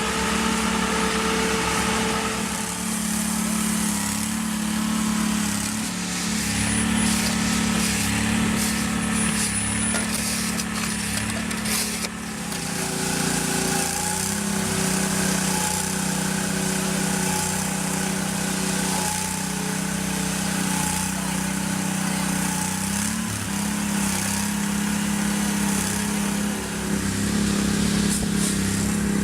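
Heavy road-construction machinery engines running steadily, a deep even hum that shifts abruptly twice as one machine's sound gives way to another's.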